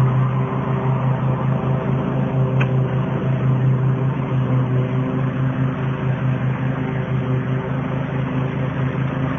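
Cub Cadet LT 50-inch riding lawn mower's engine running steadily at a constant speed, with a single short click about two and a half seconds in.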